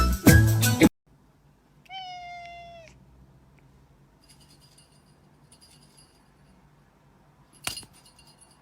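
Background music cuts off just under a second in, followed by a single cat meow about a second long, its pitch level then dipping slightly. A sharp click comes near the end.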